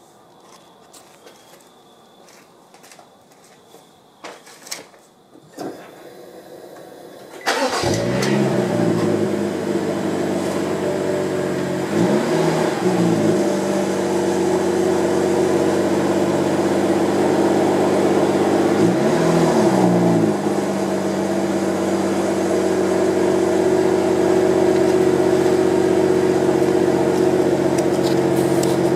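BMW 335i's turbocharged 3.0-litre inline-six, breathing through an M Performance exhaust, starts up about seven seconds in after a few faint clicks. It settles into a steady idle, with the engine speed briefly rising and falling twice.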